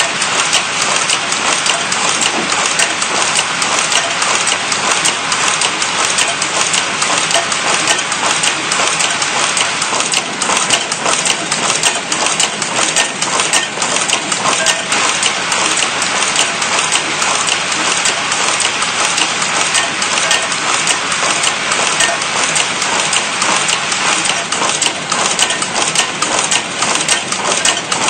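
Automatic PCB component-insertion machine running: a continuous, dense metallic clatter of rapid, uneven clicks from its indexing turret and insertion heads.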